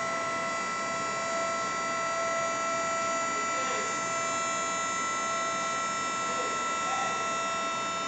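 Induction melting furnace running under power: a steady electrical whine made of several fixed high tones over a constant hiss.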